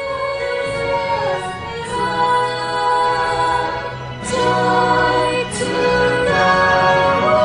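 A children's choir sings in long held notes over instrumental backing, growing louder about four seconds in.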